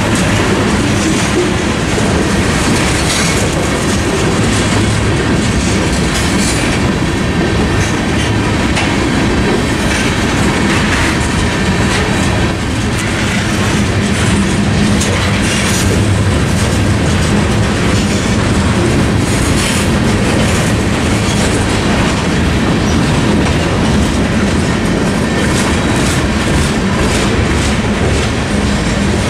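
Freight train's covered hoppers and tank cars rolling steadily past, a continuous heavy rumble with irregular sharp clicks from the wheels passing over rail joints.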